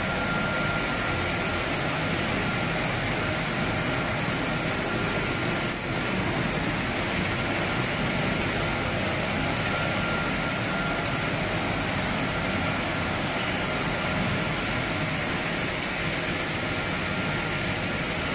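Sawdust briquette press machines on a production line running steadily: a dense, even machine noise with a faint high steady whine.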